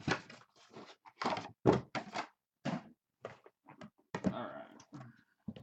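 Boxes of trading cards being handled and opened: a series of irregular thunks, scrapes and rustles, the loudest about a second and a half in.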